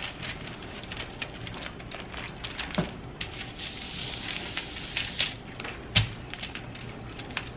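Parchment paper rustling and crinkling as pizza dough is rolled out beneath it, with scattered small clicks and two soft knocks, about 3 and 6 seconds in.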